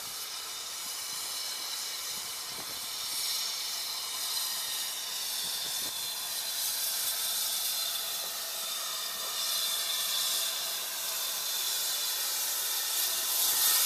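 Steady hiss of steam from the BR Standard Class 7 'Britannia' Pacific steam locomotive 70013 Oliver Cromwell as it drifts slowly into the platform, with no exhaust beats, growing gradually louder as it nears and comes almost to a stand.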